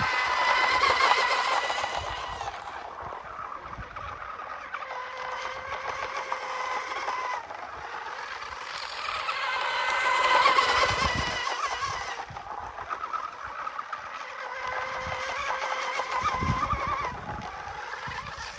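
Radio-controlled hydroplane boat's motor whining at speed as the boat laps. It swells as the boat passes close, about a second in and again around ten seconds, and fades between passes.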